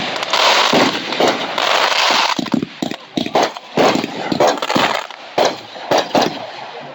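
Aerial fireworks bursting: a dense barrage of bangs and crackling for the first couple of seconds, then separate booming bursts every half second or so.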